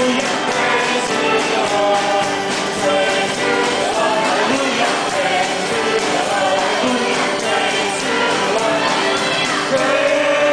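Live worship song played by a small band of violins, acoustic guitar and bass guitar, with a group of people singing along.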